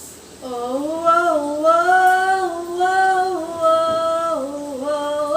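A woman singing one long held vowel without words, scooping up into the note about half a second in, then stepping up and down in pitch several times before a short break near the end.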